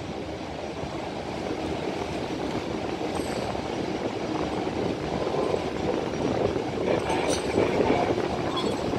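Austal 47.5 m high-speed catamaran ferry's engines and waterjets running steadily, churning the water at the stern while it holds against the berth.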